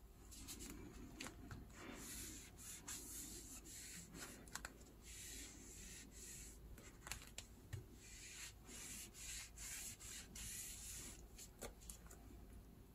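Faint rubbing as hands and a small glass bottle are pressed and rubbed over the back of a sheet of clear plastic stamps lying on a silicone tray, burnishing them to pick up the ink. It comes as soft repeated swishes with a few light clicks.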